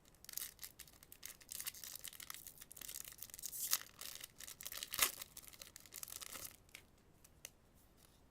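Foil trading-card booster pack wrapper being torn open and crinkled by hand, a run of crackling rips for about six seconds with two sharper tears in the middle, then stopping.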